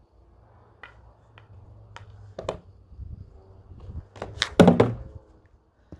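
Light taps of a stick against a small ball on grass, then a louder thunk about four and a half seconds in.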